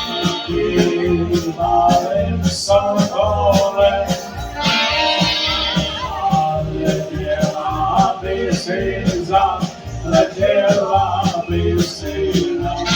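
Polka band playing live, a steady bouncing bass beat under the melody.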